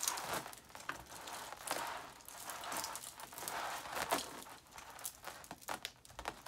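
Strings of Christmas mini-lights rustling and clicking as a tangled bundle is pulled apart by hand. The plastic-coated wires slide over each other while the small bulbs knock together and tap the table in many irregular clicks.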